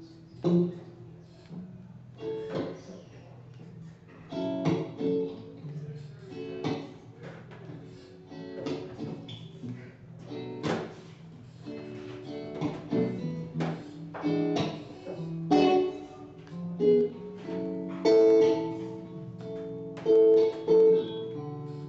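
Acoustic guitar picked and strummed: the instrumental introduction of a song, before the vocal comes in.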